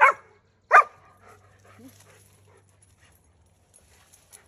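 A dog barking twice: two short, sharp barks, the second just under a second after the first, then only faint background sounds.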